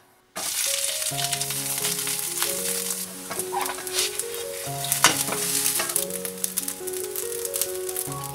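Cooked rice frying in a nonstick frying pan, crisping into a browned crust. A steady sizzle starts suddenly just after the start, and a silicone spatula scrapes and taps the pan now and then.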